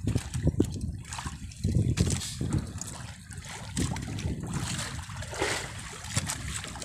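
Water splashing and trickling at the side of a small wooden fishing boat: a series of small, irregular splashes and drips.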